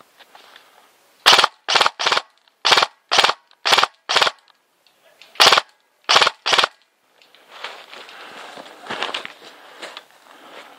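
Airsoft electric rifle, an ASG Scorpion EVO, firing about ten short bursts in quick succession. A rustle of leaf litter and brush follows near the end.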